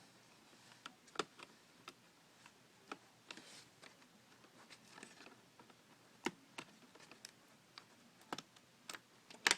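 Faint, irregular small clicks and taps of hands working on the plastic parts and connectors inside an opened laptop, with a little rustling and a sharper click near the end.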